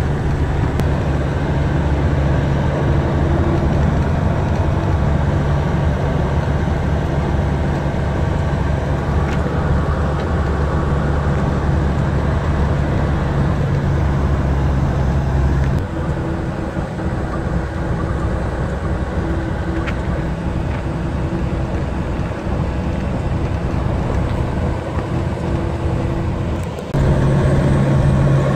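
Inside the cab of a 2008 Western Star truck on the move: a steady diesel engine drone over road rumble. The engine note drops away about halfway through and comes back louder near the end.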